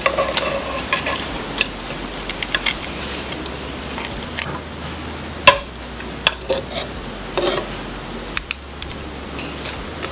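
Scattered clicks, cracks and knocks of a raw spiny lobster's shell being pulled apart by hand and a knife tapping and scraping in a metal pan, with one sharper knock about halfway through.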